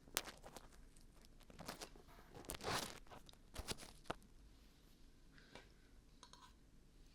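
Dried glue being peeled off the ear of a 3Dio binaural microphone, in irregular crackling and tearing strokes, the loudest a little under three seconds in.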